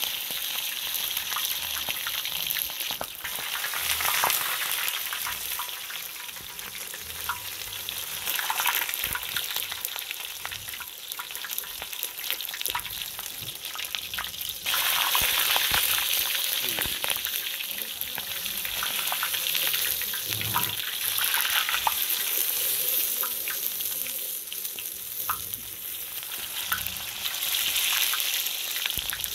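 Hot oil sizzling around a thick beef rump steak deep-frying in a wide steel talandara pan, with scattered pops. The sizzle gets suddenly louder about halfway through.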